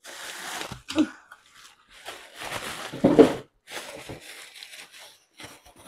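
Plastic bag rustling and crinkling in irregular bursts as it is handled and opened, with a louder knock a little after three seconds in.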